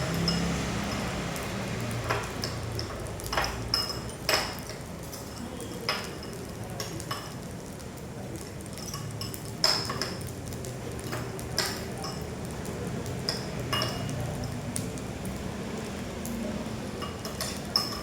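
Fried rice sizzling in a pan while it is stirred, with irregular clinks and scrapes of a utensil against the pan and a few louder knocks.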